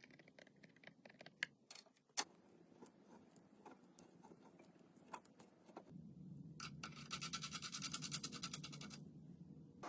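Light clicks and scrapes of hand work on metal parts, then, about seven seconds in, a fast, even run of scraping strokes for about two seconds over a low steady hum.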